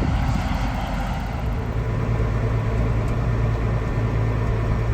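Large diesel farm-machinery engine running steadily, with a constant low hum.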